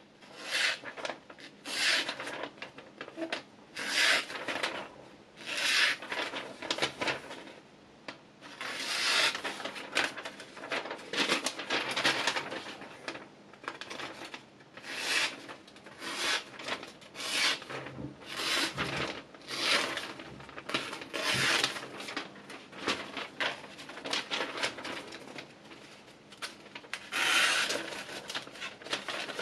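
A kitchen knife blade making a run of rasping strokes, about one a second and some longer, with short pauses between.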